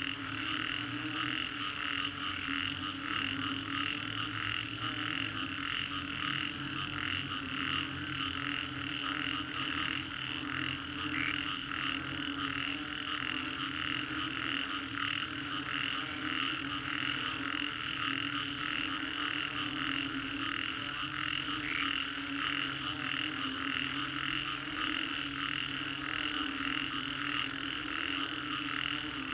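A chorus of many frogs calling at once after a rainstorm, a dense, steady mass of overlapping calls. Rapid repeated calls sit over a deep croak that pulses about once a second.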